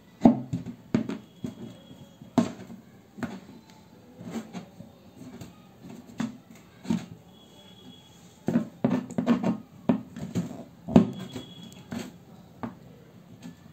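A screwdriver is pushed into the wall of a plastic jerrycan to make holes, giving irregular hollow plastic knocks and clicks with the can being handled. There is a quick run of knocks about two-thirds of the way through.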